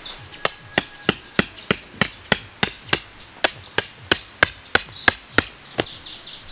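Tent pegs being hammered into gravel ground: a steady run of sharp strikes, about three a second, that stops near the end.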